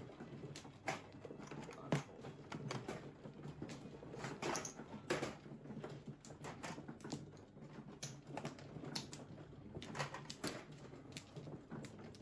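Mahjong tiles clicking and clacking as players draw tiles from the walls and discard them onto the table: irregular sharp clicks, sometimes several a second, the loudest about two seconds in and again about five seconds in.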